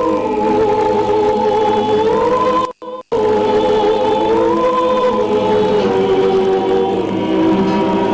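Choir singing slowly, holding long notes that shift from one pitch to the next. The sound cuts out for a moment about three seconds in.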